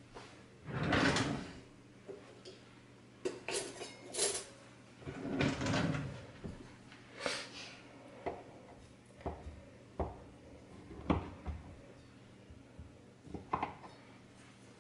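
A kitchen knife cutting through a round of scone dough on a floured countertop: a few brief scrapes and rustles, then several short knocks in the second half.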